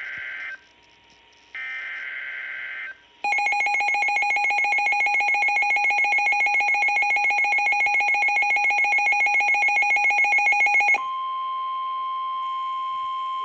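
Midland WR-400 NOAA weather radio going off for a severe thunderstorm warning. Two short screechy bursts of the SAME digital alert header come first, then the radio's own loud, rapidly pulsing alert beep for about eight seconds. From about eleven seconds in, the steady 1050 Hz Warning Alarm Tone of the broadcast takes over.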